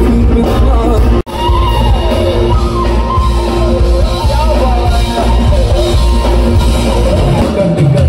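Loud live concert music through a PA: amplified singing over heavy bass. The sound cuts out for an instant about a second in.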